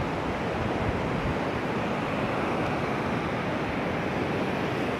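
Steady surf and wind at the shore, an even rushing noise with some wind rumble on the microphone.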